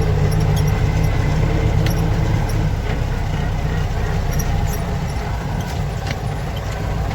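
Vehicle engine running steadily with a low hum, getting a little softer and rougher after about three seconds, with a few faint ticks.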